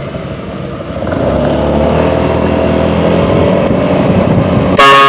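Motorcycle engine running on the road, then near the end a short, very loud blast of a bus horn fitted to the motorcycle.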